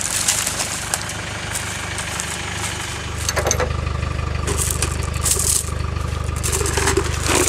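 Land Rover engine running steadily, getting louder about two and a half seconds in, with a few knocks and rattles over it.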